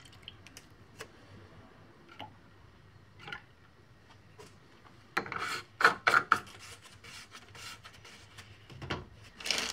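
Fabric rubbing and scraping close to the microphone, with a few faint ticks, then two spells of loud scratchy rubbing about five to six and a half seconds in and again near the end.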